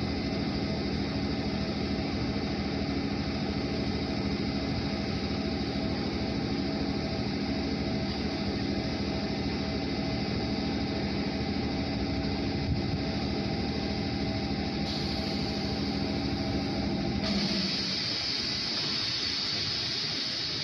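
A JR 211 series electric train standing at the platform with its onboard equipment running, a steady hum with a low drone. About seventeen seconds in the drone drops away and a higher hiss takes over.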